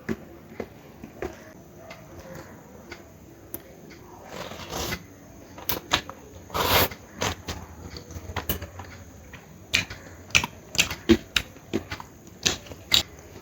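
Close-up eating sounds: irregular wet clicks and smacks of chewing and lips, with a couple of longer rustling bursts a few seconds in.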